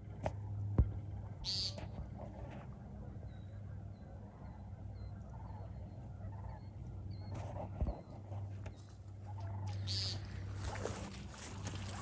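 American woodcock giving its buzzy, nasal "peent" call twice, once about a second and a half in and again near ten seconds, the ground call a male makes at dusk between display flights. Faint rustling steps come near the end.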